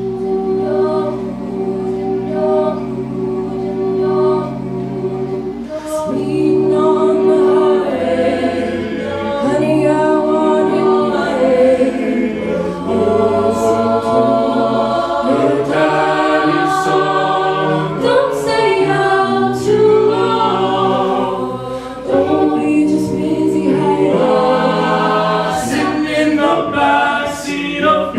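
A cappella group singing in close harmony: sustained backing chords at first, then a female lead voice over the backing vocals, with vocal percussion keeping a beat from about six seconds in.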